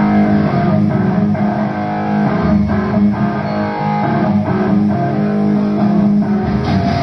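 Electric guitar and bass guitar playing loudly together through amplifiers, a steady run of sustained, strummed notes.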